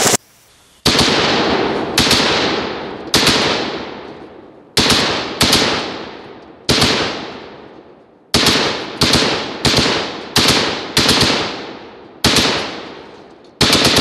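Bushmaster AR-15 in 5.56 firing on full auto: about a dozen short bursts of rapid shots, each trailing off in a long echo.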